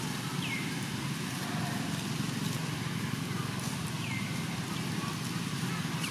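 Steady outdoor background noise, with a short high call falling in pitch heard twice.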